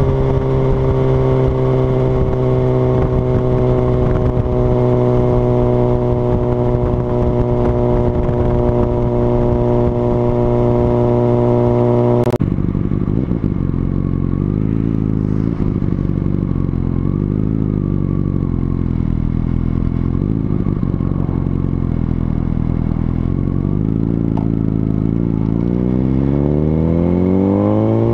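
Honda CBR1000RR Fireblade inline-four sportbike engine cruising at steady revs with wind noise for about twelve seconds. After an abrupt cut it runs at low revs with small throttle blips, then the revs climb steadily near the end as the bike accelerates away.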